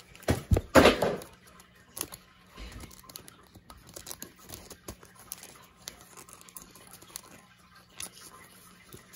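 Trading cards being shuffled by hand, one slid behind another, giving soft rustles and small clicks, with a few loud, sharp sounds in the first second.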